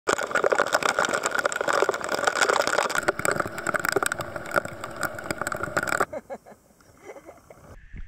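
Heavy storm rain and wind, a dense hiss with many raindrops striking close to the microphone. It cuts to a much quieter background about six seconds in.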